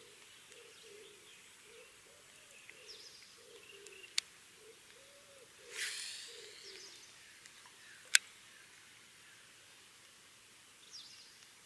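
Faint outdoor ambience with birds chirping and a low call repeating steadily underneath, broken by two sharp clicks and a short whirring burst that falls in pitch near the middle.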